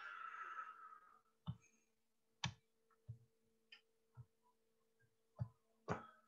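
Faint, irregularly spaced clicks and light knocks, about seven of them, over a low steady electrical hum, after a short hiss that fades out within the first second.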